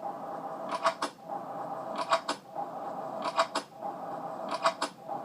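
A Kel-Tec PF9 pistol being cocked, played as a short looped clip: each pass is a quick pull-click-clack of two or three sharp clicks, repeating about every 1.2 s, over a steady hum.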